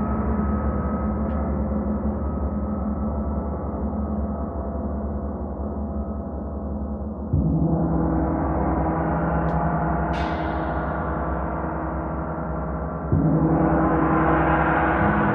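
Large hanging gongs ringing with a dense, sustained wash of overtones, struck again with a soft mallet about seven seconds in and again near the end, each stroke raising a fresh, brighter swell. A brief high, bright ring flares and fades about ten seconds in.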